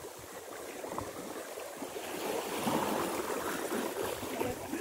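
Sea water washing and lapping against shoreline rocks, swelling louder about halfway through.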